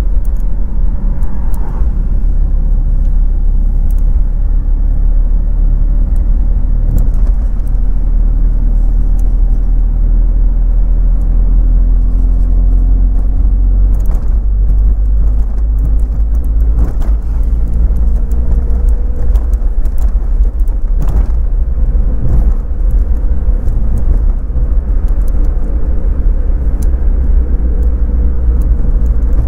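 Daihatsu Copen under way: a heavy, steady low rumble of road and wind noise, with the engine's note slowly rising and falling as the car changes speed, and a few brief knocks.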